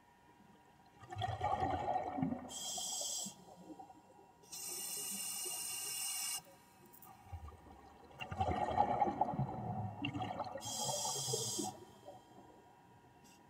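Scuba diver breathing through a regulator underwater: a gush of exhaled bubbles gurgling, then the hiss of the regulator on the inhale, twice over.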